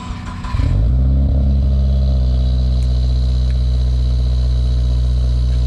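Subaru turbocharged flat-four engine starting about half a second in and settling into a steady idle through a freshly installed Mishimoto axle-back exhaust.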